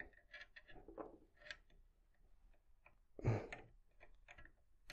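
Faint scattered clicks and ticks of string and clamps being handled on a tennis racquet stringing machine, with a brief louder rustle about three seconds in and a sharp click at the end.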